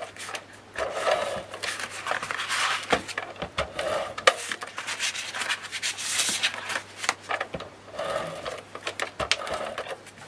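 Scotch Advanced Tape Glider adhesive tape gun drawn repeatedly across chipboard, laying double-sided tape in a series of short strokes about half a second each, with clicks as the gun is set down and lifted.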